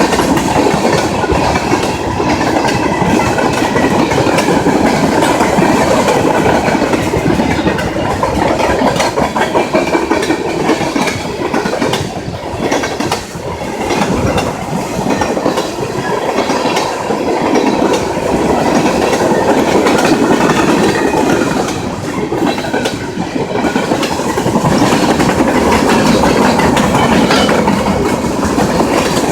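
Freight train cars rolling past at close range, steel wheels clattering rhythmically over the rail joints in a loud, continuous rumble.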